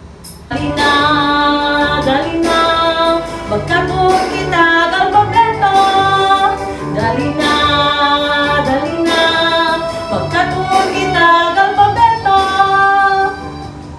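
A woman singing a children's song over bouncy backing music with a steady beat, starting about half a second in.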